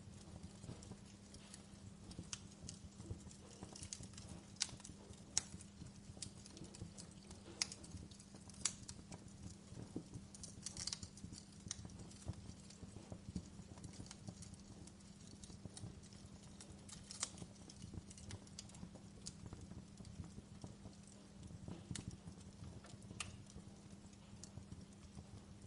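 Wood fire crackling in a fireplace: irregular sharp pops and snaps, a few louder than the rest, over a faint low steady hum.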